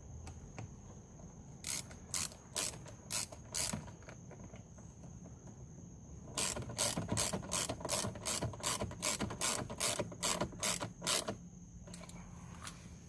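A hand ratchet clicking as it drives a door-panel screw, in two runs of sharp, even clicks: a short run of about six clicks, then a longer run at about three clicks a second.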